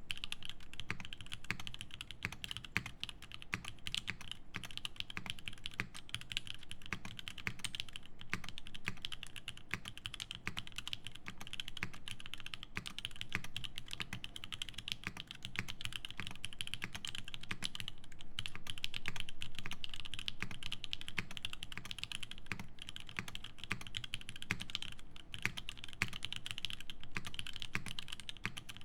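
Fast, continuous typing on a custom mechanical keyboard: a Tsukuyomi with a carbon-fibre plate, lubed and filmed Alpaca linear switches and GMK Thinkcaps keycaps, giving a dense run of key clacks.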